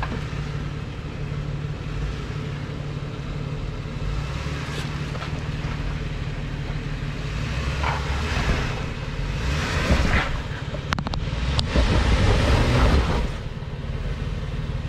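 Jeep Wrangler engine running low and steady as it crawls over rocks, growing louder for several seconds from about eight seconds in as the engine works harder and the tyres scrabble on rock. A few sharp knocks come about eleven seconds in.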